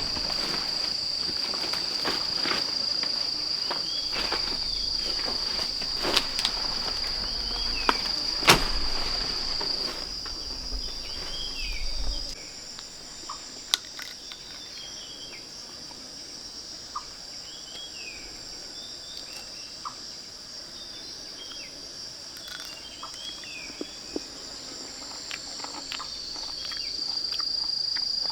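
Steady high-pitched drone of insects, with short bird chirps scattered through it. For the first twelve seconds or so, footsteps and rustling in vegetation with a few sharp knocks; after that it is quieter until the insect drone swells again near the end.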